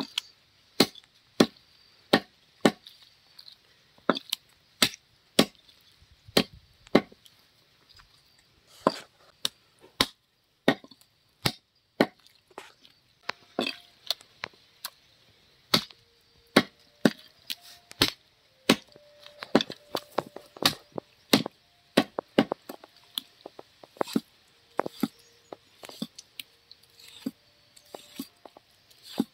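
Large curved butcher's knife chopping a raw country chicken into pieces on a round wooden log block: sharp, separate chops, irregular, about one or two a second.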